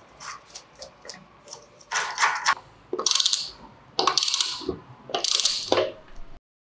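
Socket ratchet clicking in three quick strokes on the castle nut at the centre of a restored 1962 Vespa's wheel hub, with small metallic clinks of the wheel nuts being handled before it. The sound cuts off abruptly near the end.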